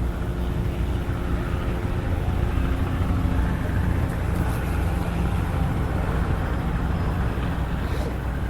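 Helicopter running steadily, with a continuous low drone.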